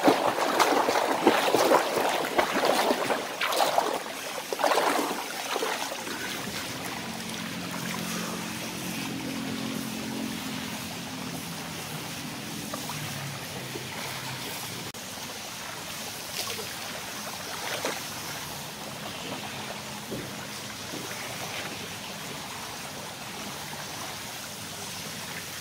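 Swimming-pool water splashing: loud, irregular splashes for the first five seconds or so, then a steadier, quieter wash of water.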